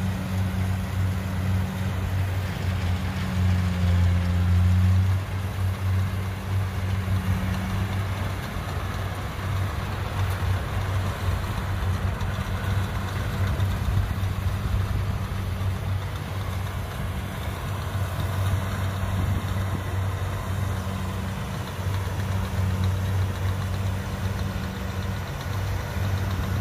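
Kubota DC70 combine harvester's diesel engine running steadily under load as the machine cuts and threshes lodged rice, a constant low drone that swells briefly a few seconds in.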